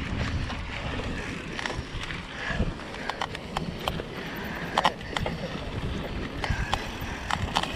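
Mountain bike rolling along a dry dirt trail, with wind buffeting the microphone at first and easing after about a second. Scattered sharp clicks and rattles from the bike over bumps follow, the loudest about halfway through.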